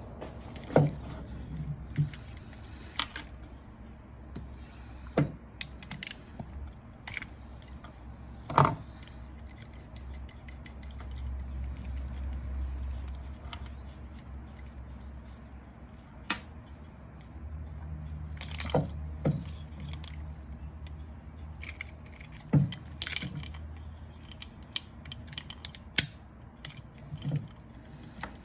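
Irregular clicks and knocks of hand tools and small metal parts being handled, with a low rumble that swells twice.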